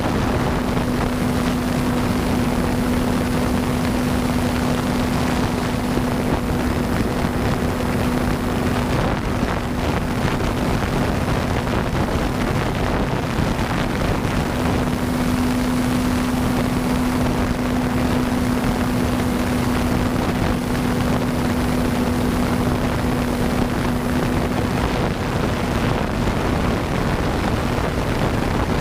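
Electric RC plane's brushless motor and propeller droning in flight as one steady tone, which fades out for a few seconds near the middle and returns, over heavy wind noise on the microphone.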